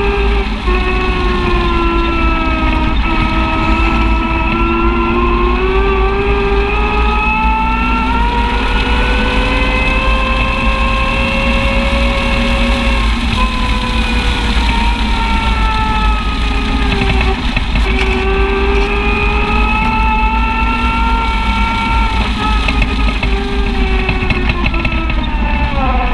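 Side-by-side UTV engine and drivetrain whining under way on a dirt trail, its pitch rising and falling in long slow sweeps as the speed changes, over a steady low rumble.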